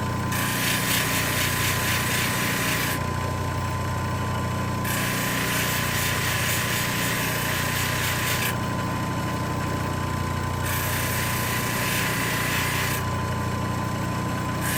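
CabKing 8 cabbing machine's motor running steadily with its water running, and a grinding hiss as a small metal ring component is pressed against the wet sanding wheel. The hiss comes and goes three times, for a couple of seconds each.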